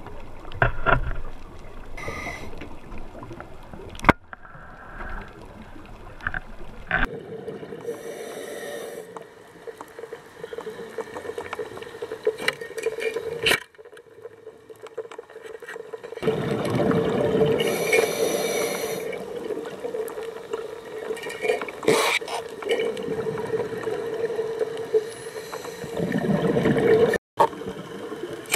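Underwater sound of a scuba diver: regulator breathing with bursts of exhaled bubbles, over a steady hum, with occasional sharp clicks.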